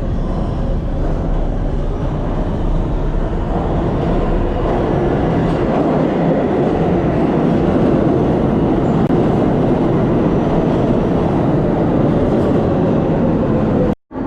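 New York City Subway #7 train running through a tunnel, heard from inside the car: a steady rumble and rush of wheels on rail that grows louder about four seconds in. It cuts out briefly near the end.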